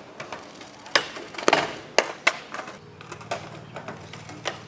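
Skateboard on skatepark ramps: a run of sharp wooden clacks and knocks from the board hitting and popping, loudest in the first half, with the wheels rolling between them.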